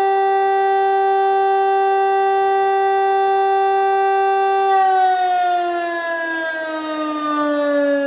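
DS 977 electromechanical civil-defence siren sounding its steady test tone, then, a bit over halfway through, beginning to wind down, its pitch falling slowly as the rotor coasts to a stop.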